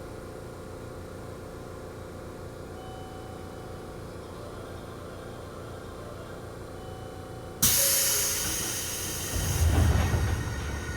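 Seibu 2000 series electric train car with a steady hum from its equipment, then about seven and a half seconds in a sudden loud hiss of compressed air that fades over a couple of seconds, followed by heavy low rumbles.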